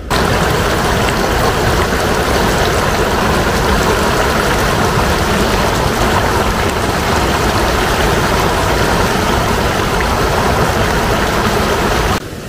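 River water rushing and churning over a low stone weir into whitewater: a loud, steady rush that starts abruptly and cuts off abruptly near the end.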